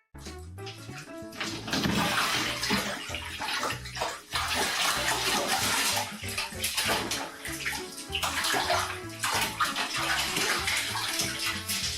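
Water splashing and running, over background music with a steady bass beat; the water grows loud about two seconds in.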